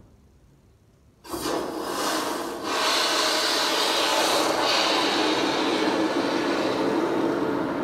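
A power tool starts suddenly about a second in and runs steadily, working against material.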